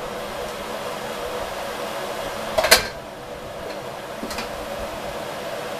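A fan whirring steadily with a faint hum, most likely the stove's exhaust fan. A short sharp clatter comes a little past the middle, and a fainter one about a second and a half later.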